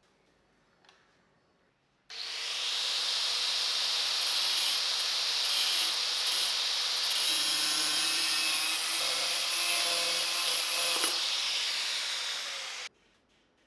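Homemade machine driven by an angle grinder, running and working material for about eleven seconds as a loud, steady noise. It starts abruptly about two seconds in and stops suddenly near the end.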